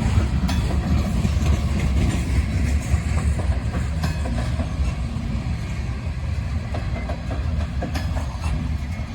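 Freight train of grain hopper cars rolling past: a steady low rumble of wheels on rail, with scattered sharp clacks as the wheels cross rail joints.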